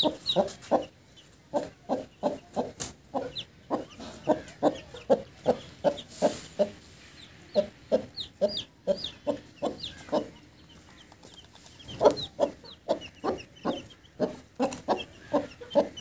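Mother Aseel hen clucking in short low clucks, two or three a second, the steady cluck a hen uses to keep her chicks close. Her chicks give thin high peeps over it, and the clucking eases for a moment about ten seconds in.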